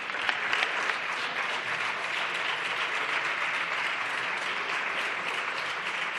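Steady applause from a group of deputies on the benches, many hands clapping at an even level throughout.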